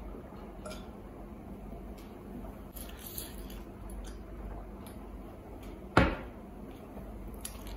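A drinking glass set down on a table with a single sharp knock about six seconds in, after a few faint small clicks while water is sipped from it.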